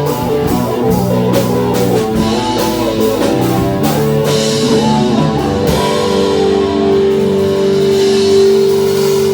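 Rock band playing: a guitar lead line over a drum kit, settling about six seconds in on a long held note as the song's outro closes.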